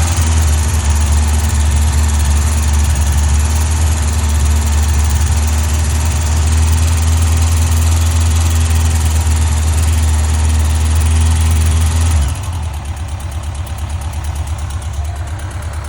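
2005 Yamaha FJR1300's inline-four engine running steadily at raised revs, then dropping suddenly to a quieter, slower idle about twelve seconds in. The owner is chasing a ticking noise from this engine.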